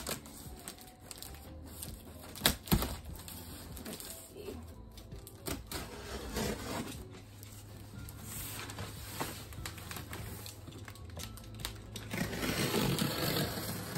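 Large cardboard shipping box being opened and unpacked by hand: scattered clicks and knocks from the cardboard, with patches of rustling packing material; the loudest knock comes about two and a half seconds in.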